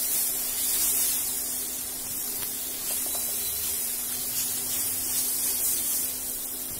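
Wet green masala frying in hot mustard oil in a kadai, a steady sizzling hiss that swells and eases as it is stirred with a spatula, with a steady low hum underneath.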